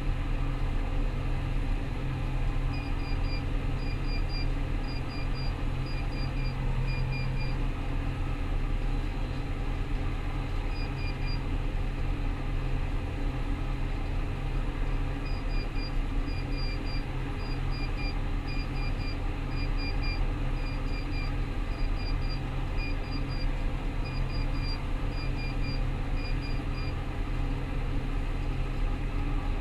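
Rostselmash Vector 425 combine harvester running steadily with a deep machinery drone. An electronic warning beeper sounds repeated short double beeps for several seconds, stops, and starts again about halfway through.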